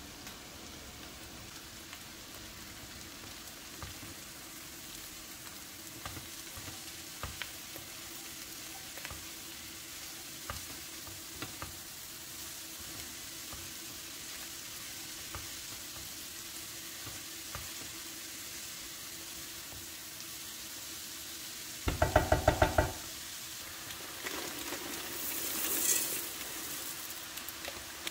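Chopped leeks and carrots sizzling as they sauté in a pot, stirred with a silicone spatula that knocks and scrapes against the pot now and then. About 22 seconds in comes a short, loud rattling clatter as the dry pasta goes into the pot, then a swell of hissing that peaks a few seconds later.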